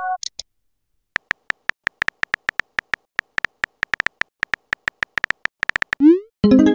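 Synthetic phone-keyboard click sounds from a texting app, a quick, uneven run of short tapping clicks as a message is typed. About six seconds in, a rising swoosh is followed by a chiming tone.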